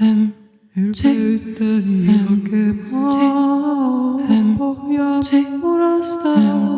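Unaccompanied voices singing and humming long held notes in close harmony. They stop briefly just after the start, come back in under a second later, and move between notes in steps.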